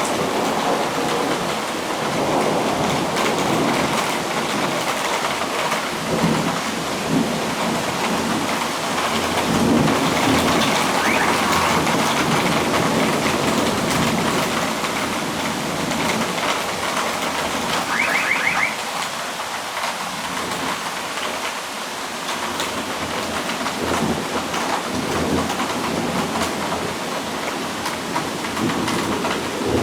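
Rain falling steadily through a thunderstorm, with thunder rumbling and swelling in the background, loudest in the middle stretch.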